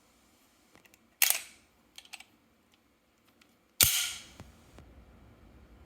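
Two shots from an HK USP pistol fired in heavy double action, about two and a half seconds apart, each a sharp crack with a short echo, with a few faint clicks between them.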